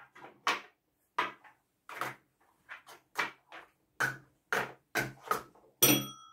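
Plastic game cups clacking against each other and the tabletop as they are stacked in a hurry, about fifteen quick knocks. Near the end a desk service bell is slapped once and rings on.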